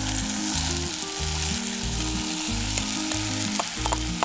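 Coconut oil sizzling steadily in a kadai as soaked sago pearls are tipped onto frying potato and tomato, with a few faint crackles. Under it, a low background tune steps through notes at a regular beat.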